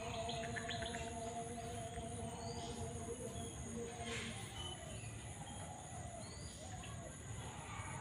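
Outdoor ambience of scattered bird chirps over a steady, high-pitched insect drone, with a faint steady hum underneath.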